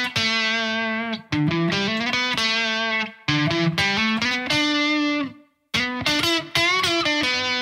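Electric guitar, a Fender Telecaster, playing short melodic phrases from a scale. Each phrase is a quick run of notes settling onto a held note, with brief silent gaps between them, and the phrases follow the spoken rhythm of "I like playing guitar." The notes are bent in the last phrase.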